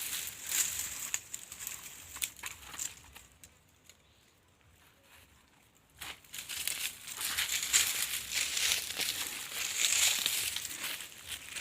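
Dry cowpea plants and pods crackling and rustling as they are handled during harvest, in two spells with a quiet pause of about two seconds in the middle.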